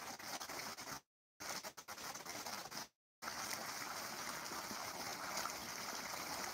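Steady outdoor background hiss at a lakeside, with no clear single event. The sound cuts out completely twice, briefly about a second in and again about three seconds in: dropouts from a patchy mobile livestream connection.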